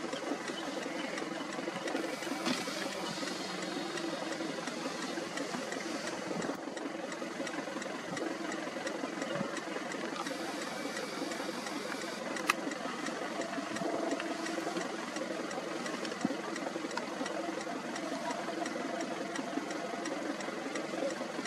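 A steady, low mechanical hum with a single sharp click about twelve and a half seconds in.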